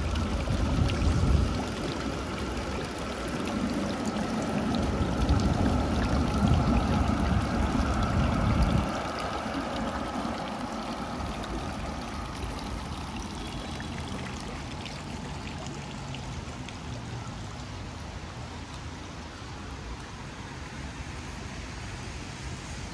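Running, pouring water with a heavy low rumble through the first nine seconds that stops suddenly, leaving a steadier hiss.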